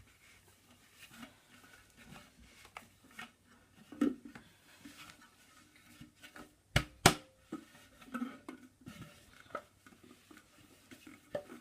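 Quiet rubbing and handling noises as the Dyson DC04's clear plastic bin is wiped out with a cloth, with a dull knock about four seconds in and two sharp knocks in quick succession a little after halfway.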